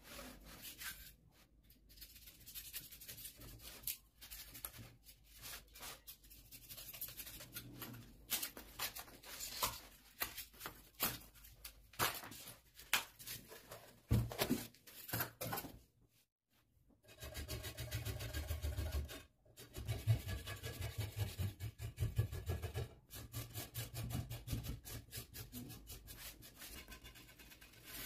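Hands cracking and breaking pieces off a brittle white mould shell around a curved cast piece: irregular snaps and crunches of crumbling material. After a short break about halfway through, steadier rubbing and scraping as crumbs are cleaned off the cast.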